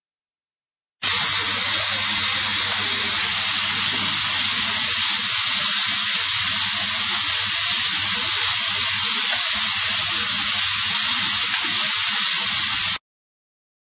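A steady, even hiss with no rhythm that starts abruptly about a second in and cuts off abruptly near the end.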